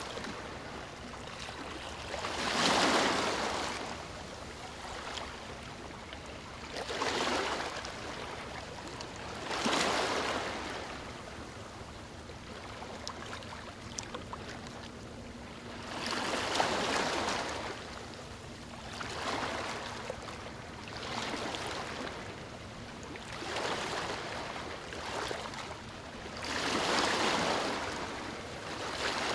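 Sea waves washing onto a sandy beach: a steady rush of water that swells and fades about eight times, a few seconds apart.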